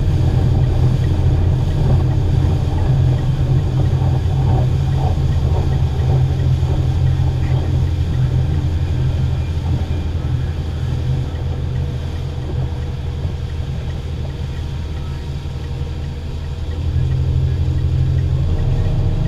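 Outboard motor running at speed while the boat pulls a tube, a steady low rumble mixed with wind and wake-water noise. It eases off in the middle and picks up again near the end.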